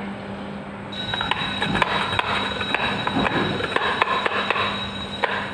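Small plastic toy tools and their packaging being handled, giving a run of light clicks, taps and rattles that starts about a second in.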